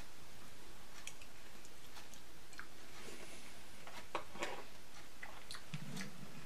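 A man chewing a mouthful of food, with faint scattered small clicks of mouth and spoon over steady room noise, and a brief low hum just before the end.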